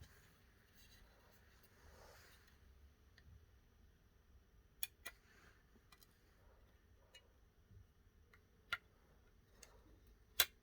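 A few isolated small, sharp clicks, about five, nine and ten seconds in (the last the loudest), over faint handling rustles: small tools and parts being handled during a phone repair.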